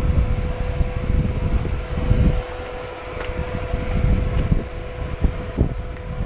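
KTM 690 Enduro R single-cylinder engine running at steady low revs, with a steady whine, and irregular low wind buffeting and thumps on the microphone.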